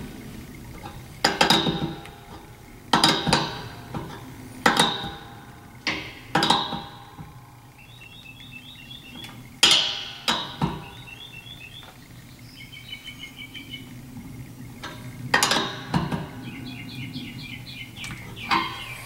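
Steel wrenches clinking and clanking against a brass quick-connect air fitting as it is tightened, about half a dozen separate clanks. Between them come short runs of quick fine clicks from the ratcheting gear wrench.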